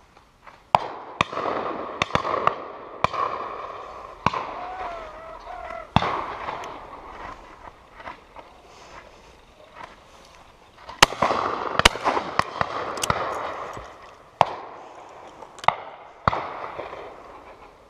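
A driven pheasant drive in full swing: about fifteen shotgun shots from several guns along the line, fired at irregular intervals. Some are loud and close, others fainter, and each rolls away in echo. The shots come thickest about eleven to thirteen seconds in.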